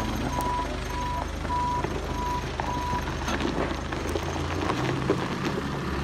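Telehandler's diesel engine running, with its reversing alarm beeping at one pitch about every 0.6 seconds. The beeping stops about three seconds in and the engine note changes.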